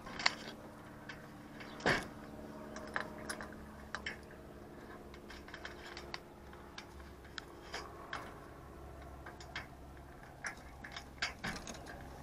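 Faint, scattered small clicks and rustles of rabbits moving about on straw in a wooden hutch, with one louder knock about two seconds in.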